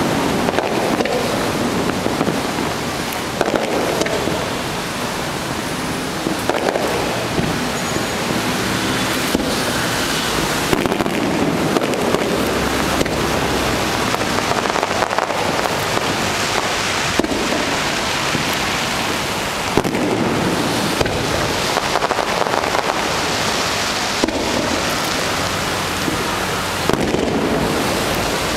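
Fireworks display: a steady barrage of launches and shell bursts, many bangs over a continuous hiss and crackle.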